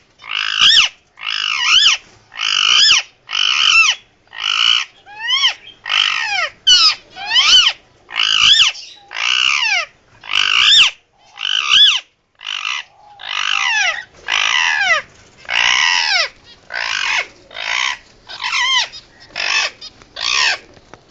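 Indian ringneck parakeet screeching over and over, a rapid train of short, harsh calls, each sliding up and down in pitch, about one and a half a second. These are the loud calls the owner calls its emergency sounds.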